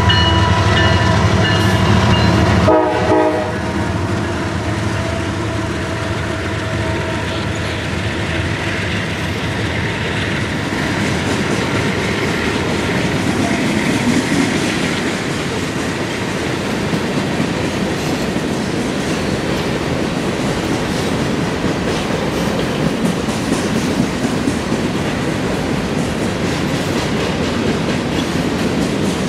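A CSX diesel-hauled manifest freight train passing: the lead locomotive's horn sounds over its engine and cuts off with a brief stutter about three seconds in. The freight cars then roll by with a steady rumble and the clickety-clack of wheels over the rail.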